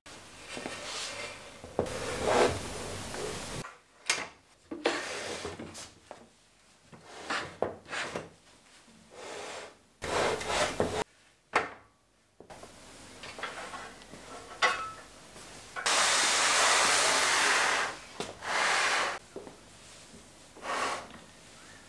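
A Wolfcraft folding work table with metal legs being set down and pushed about, then a wooden workbench being handled: a series of separate knocks, rubs and scrapes, with a longer rubbing noise about sixteen seconds in.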